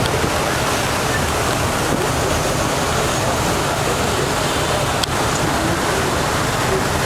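Steady rush of water churned along a moving ferry's hull, with a low rumble underneath.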